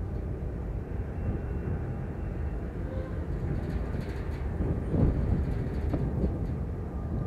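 Distant low rumble of a Union Pacific freight train's diesel locomotive running away up the line, with faint steady engine tones. About five seconds in, wind gusts on the microphone.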